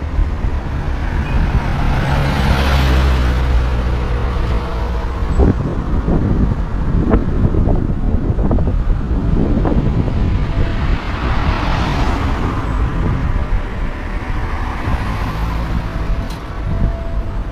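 Road traffic at close range: cars passing one after another over a steady engine rumble, with two loud pass-bys, one about three seconds in and one about twelve seconds in.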